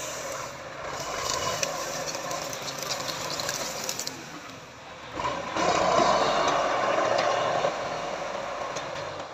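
Massey Ferguson tractor at work: the engine runs with a steady rattling, clanking and scraping of metal. It gets louder a little past halfway for about two seconds, then drops back.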